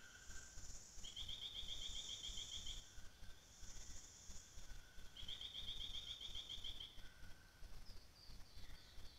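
Faint forest ambience of calling wildlife. A high trill of rapid pulses comes twice, each lasting about two seconds, over an on-and-off high hiss, with a few short falling chirps near the end.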